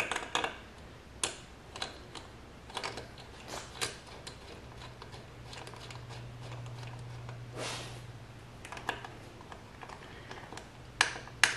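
Sparse small metal clicks and taps as a rear swingarm spool is threaded onto its bolt by hand and with a 5 mm Allen key, with a faint low hum through the middle.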